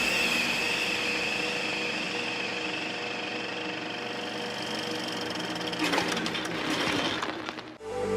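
Steady mechanical running sound with a high whine, like industrial machinery. A burst of clattering comes near the end, then it cuts off suddenly.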